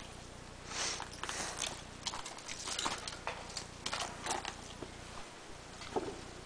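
Irregular scrapes, knocks and rustling of a person trying to clamber up, his hands, boots and gear scuffing against the surface.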